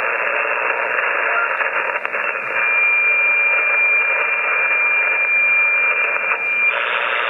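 FlexRadio 6600M HF receiver on the 80-meter band putting out a steady hiss of band noise, the noise floor raised by a nearby storm. A thin, steady whistle-like tone from a signal sits in the hiss for about four seconds. Near the end the hiss suddenly turns brighter.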